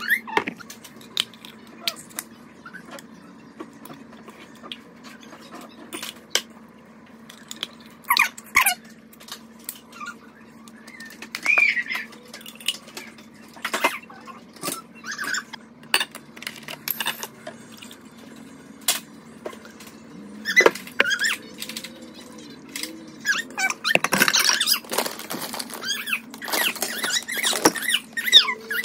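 Kitchen food preparation: a seasoning jar shaken over chicken in a slow cooker, then spice jars and utensils handled and ingredients mixed in a plastic bowl. Scattered clicks and knocks grow busier near the end, over a faint steady hum.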